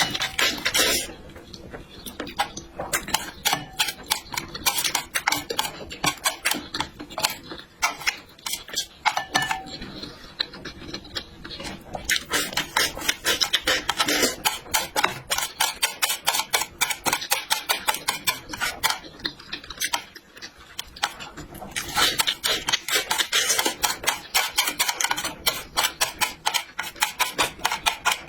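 Close-miked eating sounds: rapid wet chewing clicks and mouth smacks, with louder noisy stretches of eating near the start, in the middle and towards the end.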